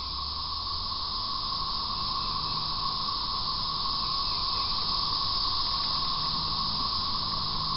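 Steady, high-pitched insect chorus from the wooded shore, a continuous hiss that swells slightly and then holds level.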